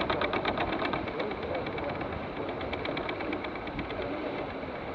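Steady rush of wind and water noise as a J/111 sailboat sails along, heard on a deck-mounted camera's microphone.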